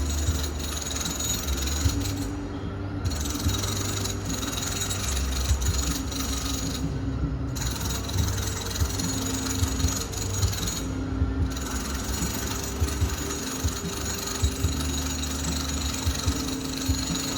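Home renovation noise heard through the walls from another room: a power tool running with a low hum and frequent knocks, its high-pitched part cutting out briefly three times.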